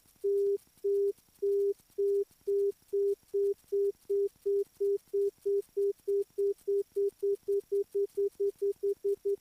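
An electronic device's alert tone: a single low, steady-pitched beep repeating, the beeps getting shorter and faster throughout, from under two a second to about four a second near the end.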